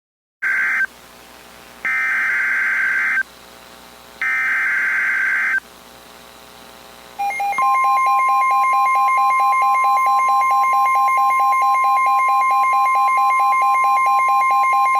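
Emergency Alert System (SAME) header: three bursts of screeching digital data tones, each a little over a second long, followed about seven seconds in by a long, steady EAS attention tone.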